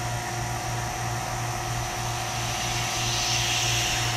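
Vacuum pump running with a steady hum, pulling a vacuum on a bell jar to degas investment plaster. About three seconds in a hiss of air swells up, as the air-release valve lets air back into the bell jar.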